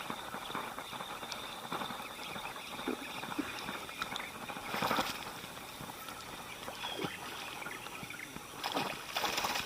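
Quiet outdoor ambience with a faint, steady high-pitched hum, broken by a couple of short knocks or splashes about five seconds in and near the end.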